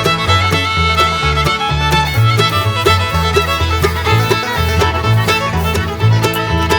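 Upbeat bluegrass-style background music, with fiddle over a steady, bouncing bass line.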